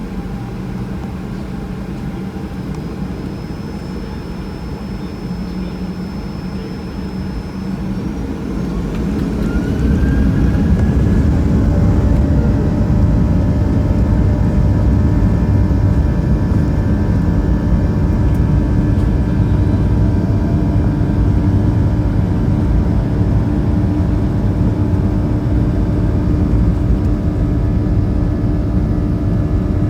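Boeing 737-800's CFM56 turbofan engines heard inside the cabin, running steadily at first, then spooling up about eight seconds in: the pitch of their whine rises and they grow louder. They settle into a loud, steady run at takeoff thrust.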